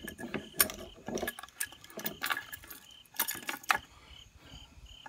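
Knife blade shaving and scraping a stick of fatwood, resin-rich pine, in short irregular strokes. Crickets chirp throughout, about two chirps a second.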